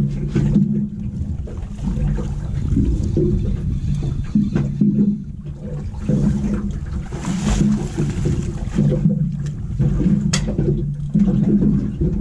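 Wind and water noise aboard a small fishing boat at sea, with a low hum that comes and goes and a sharp click about ten seconds in.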